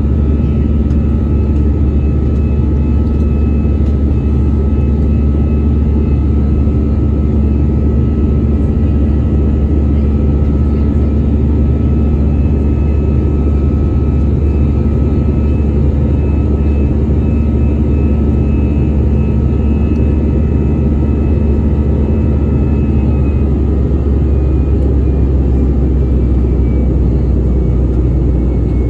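Cabin noise of an Airbus A319 in its climb, heard from a window seat over the wing: the steady roar of its CFM56 turbofan engine and the airflow, a deep rumble with faint steady whining tones above it.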